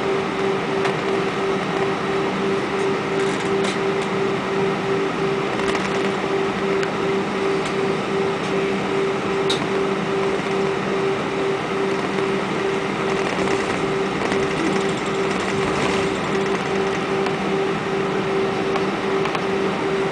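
Cabin noise of an Airbus A320-232 taxiing, its IAE V2500 engines at idle: a steady drone with a hum that throbs about three times a second.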